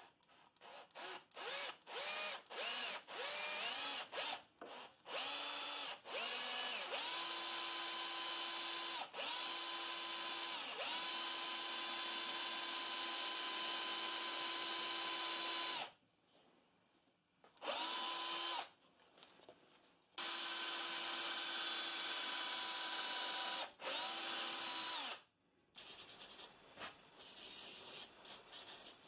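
Bosch cordless drill/driver drilling into a small wooden cut-out. It is first pulsed in many short bursts, each whine rising in pitch as it speeds up, then it runs steadily for long stretches, stopping twice. Near the end there are softer, uneven rubbing sounds on wood.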